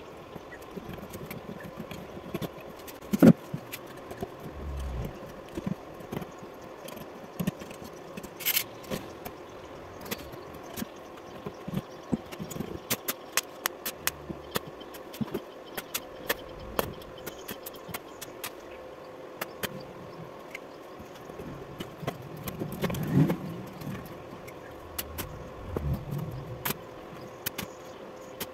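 Stick welding on a wheelbarrow's steel frame: clusters of sharp crackling clicks from the arc over a faint steady hum, with a few dull knocks as the frame is handled.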